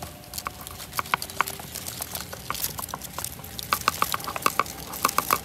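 Fingers teasing apart a tangled mass of fine citrus cutting roots and crumbling damp potting soil, giving an irregular crackling and rustling. The crackles get busier in the second half.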